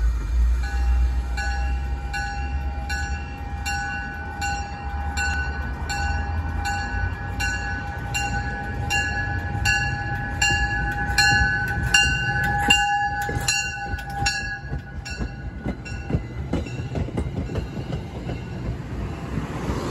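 MBTA commuter rail train moving through the station, with a low diesel rumble. A bell rings steadily, about three strokes every two seconds, and stops about three-quarters of the way through. After that the passenger coaches roll past, their wheels clicking over the rail joints.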